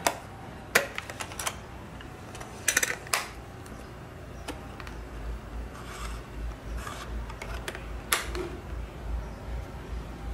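Hard plastic clicks and clacks from a Sangean ATS-909X portable radio's case being handled and turned over in the hands. There is a quick run of sharp clicks in the first few seconds and one more a little after eight seconds in. A low rumble runs underneath in the second half.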